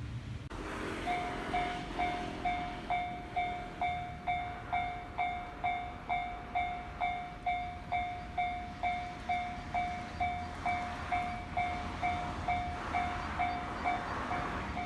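Japanese railway level-crossing warning bell ringing its 'kan-kan' alarm. An even, ringing tone is struck about twice a second, starting about half a second in.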